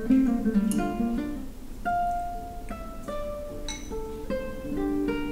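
Background music: acoustic guitar picking a melody of single plucked notes.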